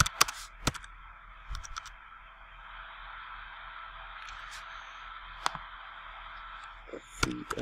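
A few scattered computer keyboard and mouse clicks: a couple near the start, one about five and a half seconds in, and a quick cluster near the end. Behind them is a steady microphone hiss with a low mains hum.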